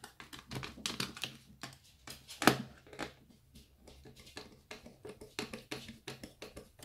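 Hand screwdriver driving a lid screw back into a plastic alarm-expander enclosure: a quick, irregular run of small clicks and ticks, with one louder click about two and a half seconds in.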